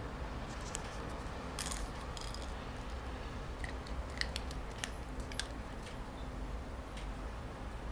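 Scattered light clicks and small metallic jingles as a small dog noses and mouths its ball and toys, over a steady low room hum.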